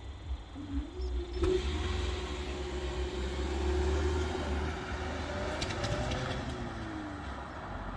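Automatic half barriers at a railway level crossing rising. The barrier mechanism's motor hums steadily for about six seconds as the booms lift, with a sharp click about a second and a half in. A car drives across over low wind rumble on the microphone.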